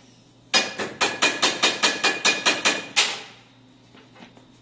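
Small hammer tapping on metal: about a dozen quick, ringing strikes at roughly five a second, lasting about two and a half seconds, as a pin is driven out of a Rossi Gallery .22 rifle's action.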